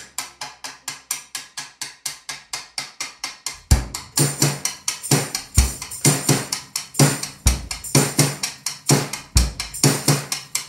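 Opening of a pop-rock song played on drums alone. First comes a fast, even tapping at about four beats a second. A bass drum and the rest of the drum kit join in just under four seconds in.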